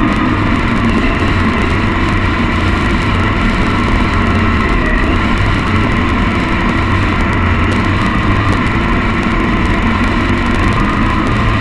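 Triumph Bonneville's parallel-twin engine running steadily at cruising speed, with wind rushing over the microphone.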